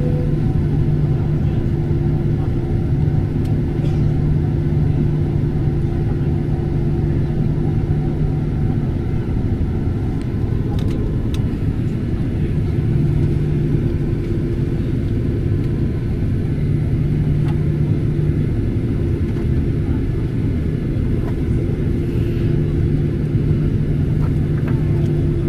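Cabin noise of a Boeing 737-800 taxiing, its CFM56-7B engines at idle: a steady rumble with a constant low hum, heard from inside the cabin.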